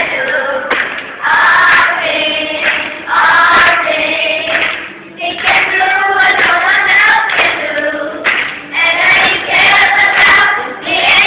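A children's choir singing together, line by line, with short breaks between the phrases.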